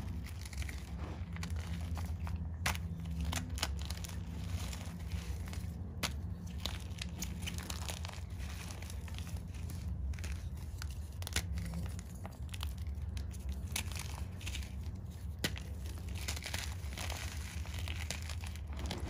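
Chalk being crunched and crumbled close to the microphone: a continuous, irregular run of small dry crackles and sharp snaps.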